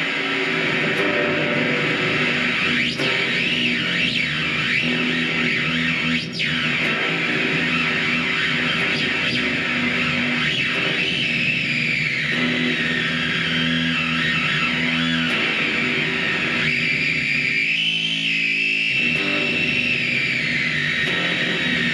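Electric guitar played through a Noise Therapy FX Stomp Box Fuzz pedal combined with other effects pedals: sustained fuzzed notes with slow sweeping, gliding high tones over them.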